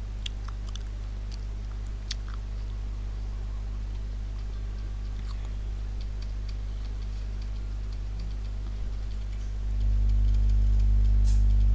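A steady low hum with faint scattered clicks over it; the hum grows louder for about two seconds near the end.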